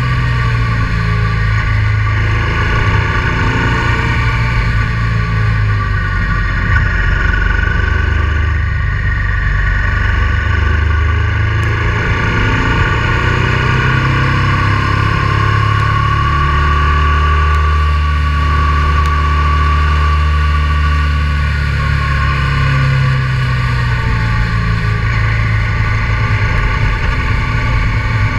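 Honda Transalp 650's V-twin engine running steadily as the motorcycle is ridden, engine speed rising and falling a few times.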